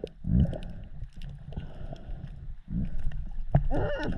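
Underwater water noise as heard by a submerged camera: a muffled low rumble that swells twice, with scattered small clicks and bubbling.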